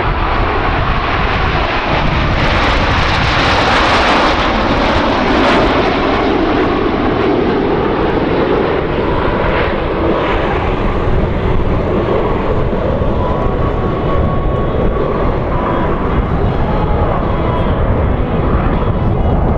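Canadair CT-114 Tutor jets of the aerobatic team, their turbojet engines swelling to a loud rushing peak a few seconds in, then settling into a steady drone as they fly their display.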